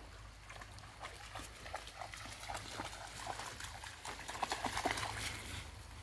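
A dog's paws splashing through shallow stream water as it wades toward the bank, a quick irregular run of splashing steps that grows loudest about four and a half to five seconds in.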